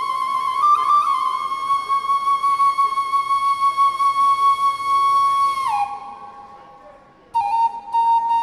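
Solo flute-like wind instrument playing a slow melody of long held notes with small pitch steps. About six seconds in the note slides down and fades out, and after a brief pause it comes back on a new held note.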